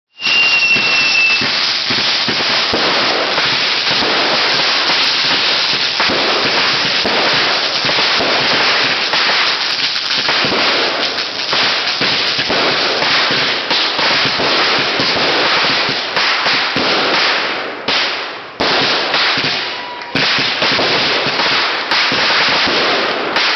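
Fireworks crackling and popping in a dense, rapid, continuous barrage, with a short high whistle in the first second or so. The crackle breaks off briefly a few times near the end.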